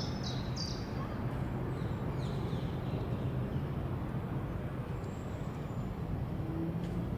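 Outdoor background noise: a steady low rumble, with a small bird's quick repeated chirps in the first half second and a few faint bird notes about two and a half seconds in.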